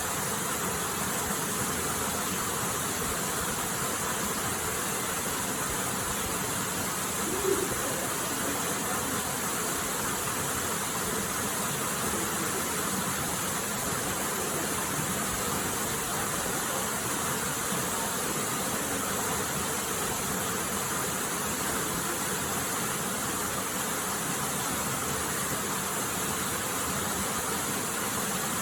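Waterfall: a steady, even rush of falling water, with one short louder sound about seven and a half seconds in.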